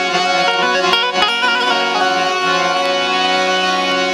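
Instrumental interlude of Gujarati santvani bhajan music: held tones under a melody stepping through quick notes, with two sharp knocks about a second in.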